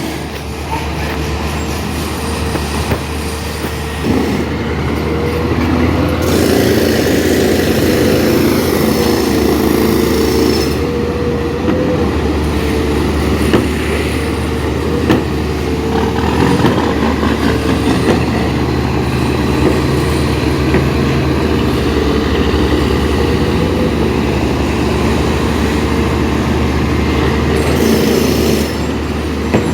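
Heavy diesel construction machinery running steadily under load, with a wavering whine and a few sharp knocks.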